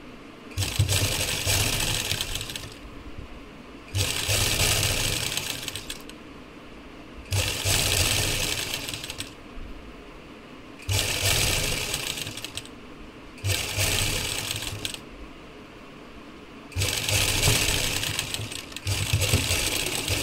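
Black domestic sewing machine stitching lace trim onto a fabric edge, running in seven short bursts of about two seconds each with brief pauses between, as the fabric is repositioned.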